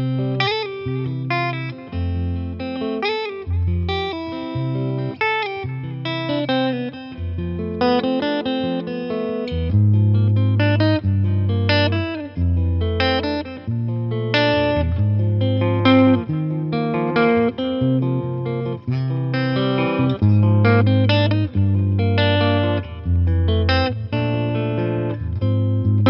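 Eastman T185MX semi-hollow electric guitar played clean through a Boss Nextone amp, improvising a bass line of low notes that change about once a second under chords and single-note melody lines. The bass notes grow fuller about ten seconds in.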